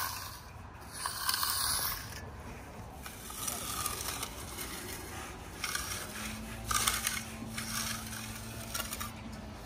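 Steel hand trowel scraping over a concrete countertop in repeated strokes, burnishing the setting concrete to a smooth, hard finish. A faint steady hum joins about six seconds in.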